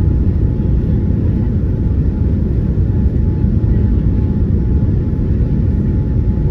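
Cabin noise inside a Boeing 787-9 on final approach with flaps extended: a steady low rumble of engines and airflow, with a faint steady whine above it.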